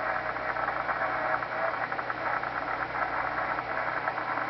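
VLF radio receiver's audio in narrow CW mode, tuned near 18 kHz: a steady hiss of band noise laced with fast crackling clicks of static. This is the noise on the band that is being tracked down.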